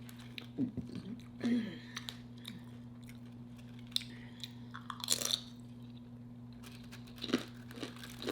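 Close-up mouth sounds of someone chewing crunchy food: scattered crisp crunches, with a louder run of crunching about five seconds in.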